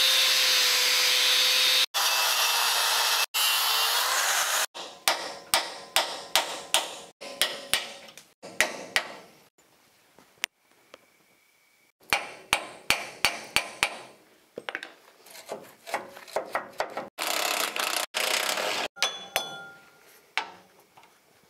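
Hammer blows on the steel truck frame knocking out seized spring-shackle rivets: runs of sharp metal strikes, about two a second and then faster, about four a second. Between the runs come stretches of loud, steady noise from a power tool working on the metal.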